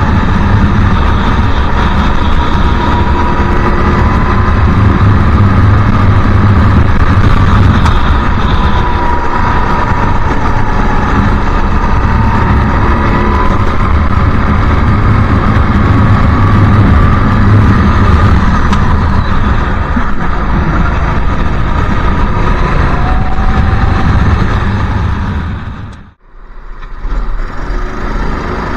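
Go-kart engine running hard under the onboard camera, with a rush of wind and track noise, its pitch rising and falling gently with speed through the corners. About 26 seconds in the sound cuts off suddenly, then a quieter engine sound comes back near the end.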